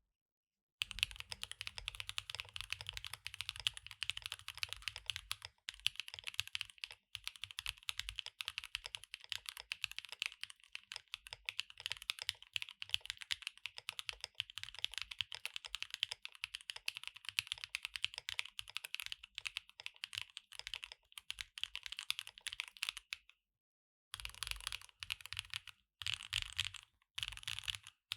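Typing on a Neo Ergo mechanical keyboard fitted with Kailh BCP switches: a fast, steady stream of keystroke clacks. There are brief breaks about six and seven seconds in, a full stop of about a second a little after twenty-three seconds, and then shorter bursts of typing.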